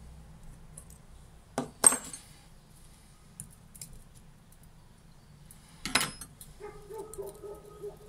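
Small metal clicks and clinks from the mechanism of a Saffa 10 lighter being worked apart with a steel pick: two sharp clicks a little before two seconds in, another burst of clicks about six seconds in, and light ticks between. Near the end, a faint squeaky scraping of metal on metal.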